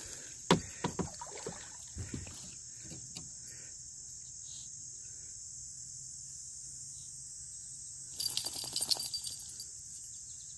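A steady high-pitched insect chorus, with a few light knocks in the first couple of seconds and a short burst of clattering about eight seconds in.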